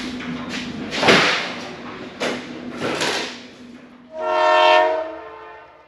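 Loud knocks and scraping bursts from wooden pallets being handled in an empty trailer, over a steady low hum. About four seconds in, a horn-like chord starts suddenly, holds for about a second and fades away.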